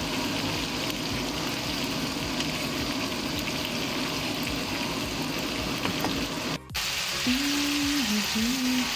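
Chicken liver and peeled boiled eggs sizzling steadily in a frying pan. The sound cuts out briefly about two-thirds through, and then a simple held melody plays over the sizzle.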